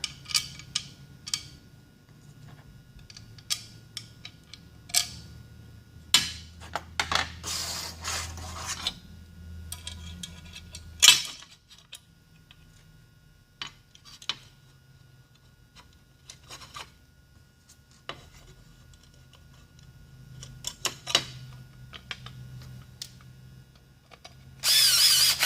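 Metal parts being handled and fitted on a Stihl MS 291 chainsaw: clicks, taps and scraping as spike bolts are pushed through and the magnesium side cover is set in place, over a faint low hum. One sharp knock stands out about 11 seconds in, and a short loud rasping burst comes near the end.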